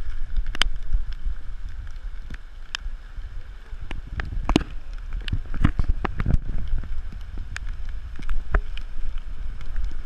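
Floodwater sloshing and splashing irregularly as someone moves through a flooded street, with wind rumbling on the microphone. The splashes and knocks come thickest in the middle.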